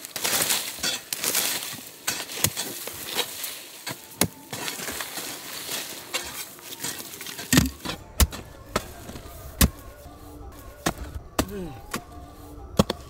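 Hoe and crowbar digging into loose soil: repeated scraping and chopping strikes. About halfway through, the sound changes to a low rumble with sharp knocks and a few short pitched sounds.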